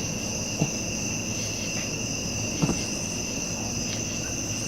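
Steady chorus of crickets chirring, a continuous high-pitched trill. Two brief faint sounds break in, about half a second in and again near the middle.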